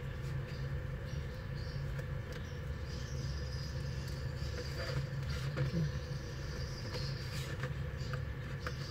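Faint clicks and taps of a small screwdriver and fingers on an opened iPhone 6s over a steady low hum. The clicks come more often in the second half, as the display is tilted up off the phone's body.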